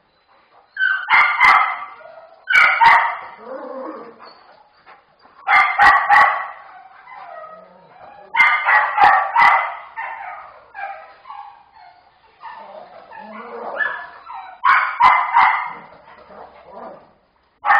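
Dog play barking: about five loud bursts of a few quick barks each, with quieter yips and grumbles in between, while two dogs play-fight.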